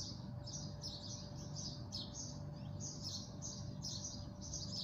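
Spatula stirring mixed vegetables and mushrooms in a stainless steel frying pan, scraping against the pan about twice a second.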